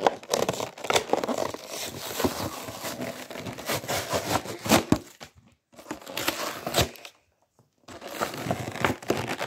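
Stiff clear plastic blister packaging of an action figure being crinkled and pried open by hand, crackling with many sharp snaps. The crackling stops briefly about five seconds in and again about seven seconds in, then starts again.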